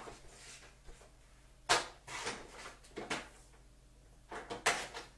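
A few short, sharp scraping swishes of blue card stock being handled and cut to a 4 by 6 piece, the loudest about two seconds in and again near the end.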